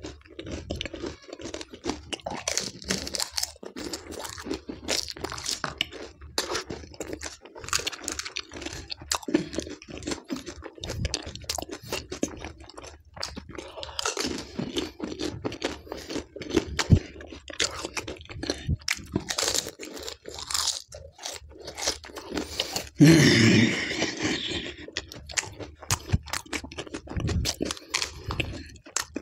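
Close-miked crunching and wet chewing of pani puri: crisp hollow puri shells filled with spicy green pani and stuffed with raw green chillies, bitten and chewed in irregular crackly bursts. About two-thirds of the way through comes one louder burst lasting about a second.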